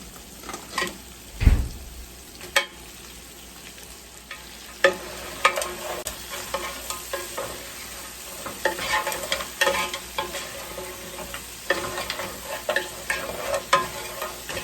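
Blue crab being stir-fried in hot oil: a steady sizzle with repeated clatter and scraping of the stirring utensil against the pan, and a heavy thump about one and a half seconds in.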